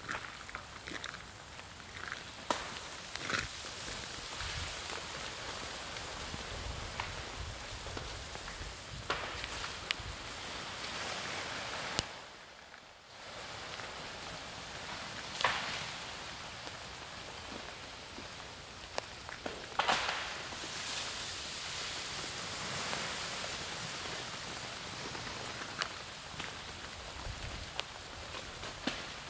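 Freezing rain falling steadily on ice-coated trees and frozen ground, a constant pattering hiss, with scattered sharp cracks and clatters, the loudest about halfway through and about two-thirds of the way in.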